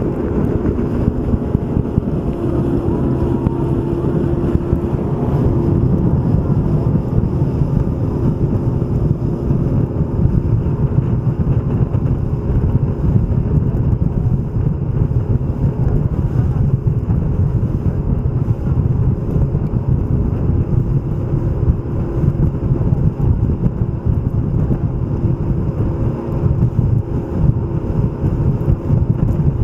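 Tour speedboat's motor running steadily under way, a constant low drone with wind buffeting the microphone.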